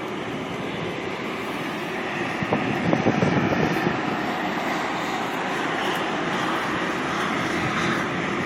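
Pickup truck driving slowly, a steady drone of engine and tyre noise that grows a little louder about three seconds in.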